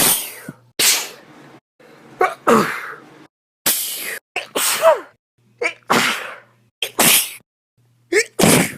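A person sneezing over and over, about eight sneezes in a row at roughly one a second. Each is a short voiced 'ah' or catch of breath followed by a sharp, loud burst.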